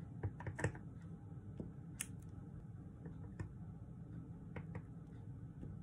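A few light, scattered taps and clicks of a clear acrylic stamp block being inked on an ink pad and pressed onto a paper envelope, the sharpest about two seconds in, over a faint low hum.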